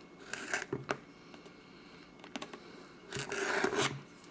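Trading card box and its packaging being handled: short scraping and rustling with a few light taps, and a longer stretch of rustling about three seconds in.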